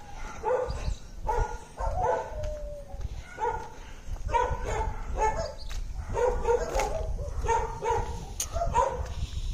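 Dogs barking repeatedly at a stranger walking by, short barks coming roughly every half second to second, with one drawn-out falling whine about two seconds in.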